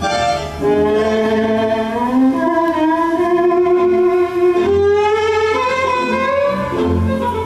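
Argentine tango music playing: a long held melody on stringed instruments that steps upward through the first half, over a low bass line.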